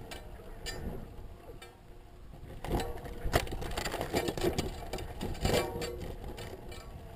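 Irregular clicking and rattling, densest through the middle few seconds.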